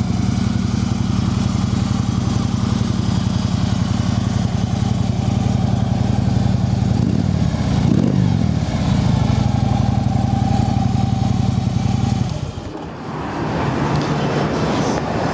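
2012 Harley-Davidson Electra Glide Classic's air-cooled V-twin idling through a baffled Screaming Eagle exhaust, not very loud, with one quick throttle blip, up and back down, about eight seconds in. The engine is shut off about twelve seconds in.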